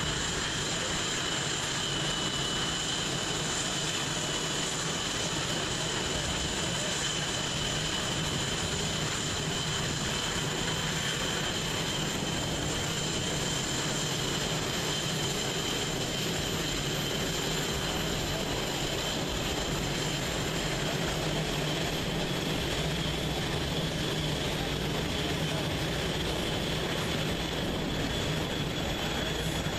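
Blue Angels F/A-18 Hornet jet engines at low taxi power, a steady high-pitched whine over a rushing hiss as the jets roll along the runway.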